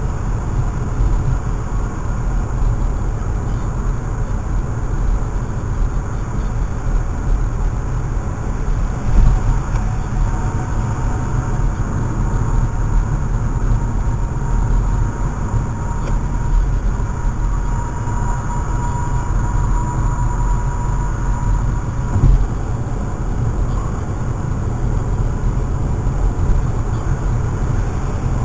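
Steady low road and engine rumble inside a car's cabin while driving on a highway, with a brief thump twice.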